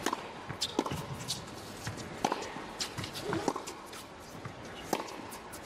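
A tennis point on a hard court: sharp pops of racket strikes and ball bounces at irregular intervals, with high, brief shoe squeaks, over a low steady hum of the arena crowd.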